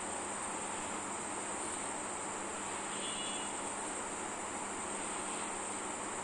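Steady high-pitched background hiss, unchanging throughout, with no distinct cutting sounds heard.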